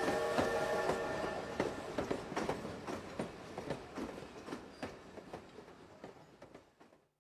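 Railway carriage wheels clacking over rail joints, with a brief held squeal of tones at the start, the whole sound fading out steadily to silence.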